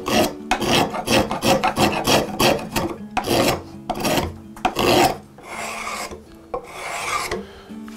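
Metal spokeshave shaving the curved edge of a white oak blank. A quick run of short cutting strokes, about four a second, is followed by two longer, quieter strokes near the end.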